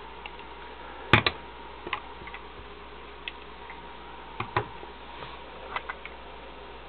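About eight light, sharp clicks and taps, spaced irregularly and loudest about a second in, from a hand handling 1:32 scale diecast model police cars and pressing their strobe switches, over a faint steady hum.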